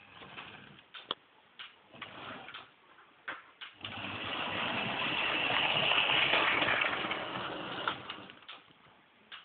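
00 gauge model train running on its track: a few sharp clicks from the wheels and rails, then the whirr of the locomotive's motor and wheels swelling to a peak about six seconds in and fading again as it passes.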